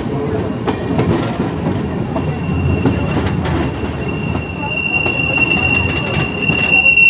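Passenger train rolling along with a steady rumble of wheels on rails and occasional clicks. About two seconds in, a high, steady squeal of steel wheels against the rails sets in and grows louder.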